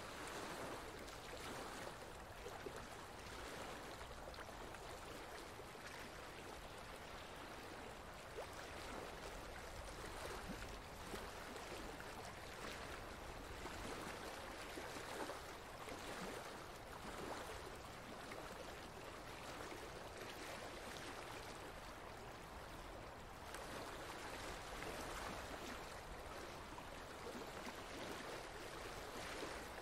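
Steady, soft rushing of flowing water, like a stream, swelling gently now and then.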